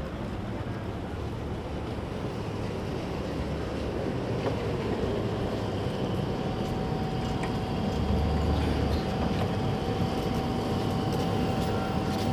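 Tatra T4SU tram approaching and pulling up at a stop: a low rumble of wheels on the rails that grows steadily louder, with a thin steady whine coming in about halfway through as it slows, and a few light clicks near the end.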